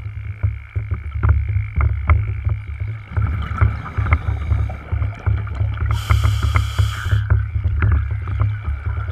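Underwater sound picked up through a dive camera's housing: an uneven low rumble of moving water with scattered clicks and a faint steady high tone. About six seconds in, a hissing rush of a scuba diver's exhaled regulator bubbles lasts about a second.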